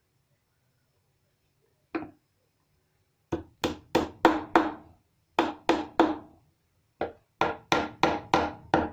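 Hammer striking poplar wood: a single blow, then three quick runs of blows at about three a second, each knock ringing briefly.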